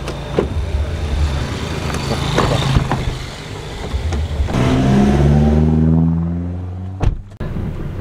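A few sharp clicks of the car door being opened over a low engine hum. Then, a little past halfway, the car's engine pulls away and accelerates, its pitch rising for about two seconds before the sound cuts off suddenly.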